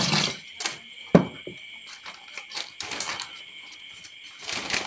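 Thin plastic water bag being handled: several short crinkling rustles of the plastic, with one sharp click about a second in.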